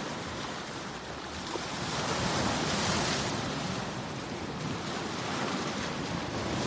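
Ocean waves washing onto a shore: a steady rushing wash that swells about two to three seconds in, then eases off.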